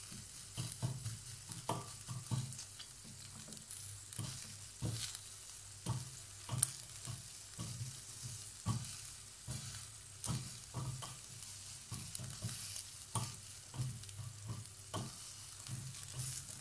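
Meat skewers sizzling on an electric grill, with many irregular clicks and taps as the wooden skewers are turned and knocked against the wire rack.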